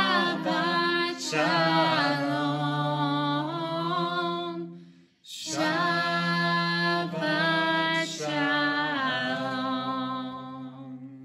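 A man and a woman singing together without accompaniment, in two long held phrases with a short break about five seconds in. The last note fades out near the end.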